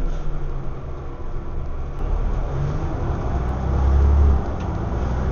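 Scania OmniDekka double-decker bus's diesel engine running, heard from inside the passenger saloon as a deep drone under road noise. The drone swells louder about four seconds in.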